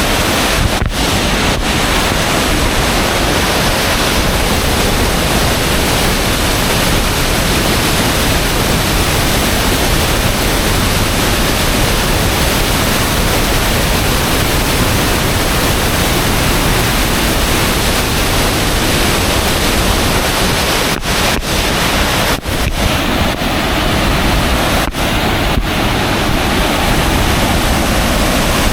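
Loud, steady roar of a waterfall's falling water, with a few momentary dips near the end.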